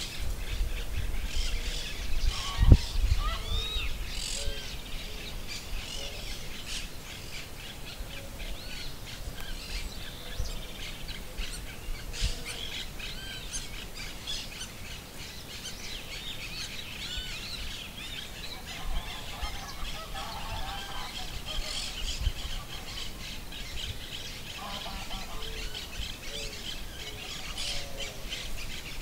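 Several birds chirping and calling, with many quick high chirps throughout. Lower, rougher calls come about two-thirds of the way through and again a few seconds later. A few low thumps occur in the first three seconds, the loudest about three seconds in.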